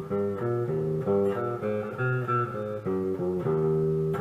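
Monoprice Mini Cali electric guitar played through an amplifier, with its swapped pickups. It plays a quick blues-style riff of single notes and small chords that change a few times a second.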